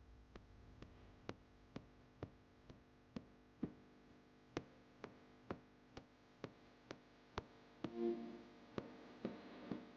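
Faint, evenly spaced mechanical clicking, about two clicks a second, from an automated vial filling and capping machine cycling, with a brief hum and hiss about eight seconds in.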